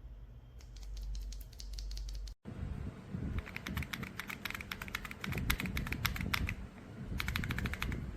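Mechanical keyboard fitted with Gateron linear switches being typed on: a run of fast key clacks, a sudden break about two seconds in, then denser, fuller typing.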